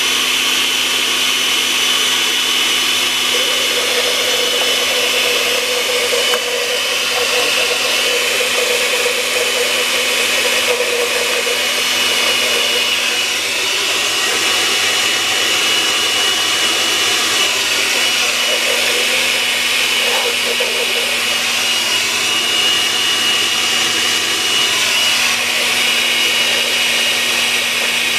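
Countertop blender motor running at a steady speed with a constant whine, blending cilantro leaves and stems with water and oil into a paste.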